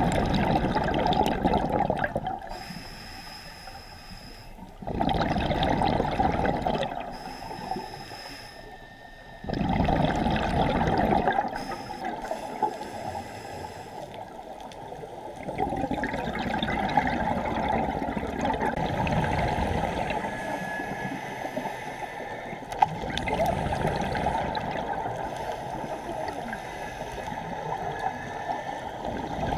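Scuba regulator breathing underwater: loud bursts of exhaled bubbles, a couple of seconds each, come every few seconds, with quieter spells between.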